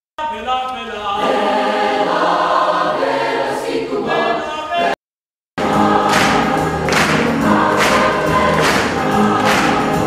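Children's choir singing, in two separate excerpts: the first breaks off abruptly just before halfway, and after about half a second of silence a second passage begins.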